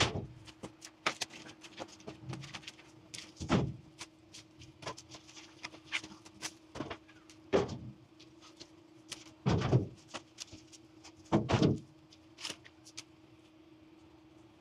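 Irregular knocks and clunks, four of them heavier, over a steady low hum.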